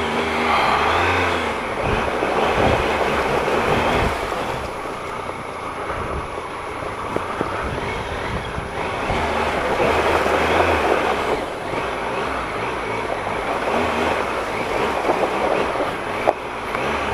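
Triumph Explorer XC's 1215cc three-cylinder engine running at low road speed, its sound swelling and easing every few seconds, under a steady rush of tyres through mud and puddle water with occasional knocks from the ruts.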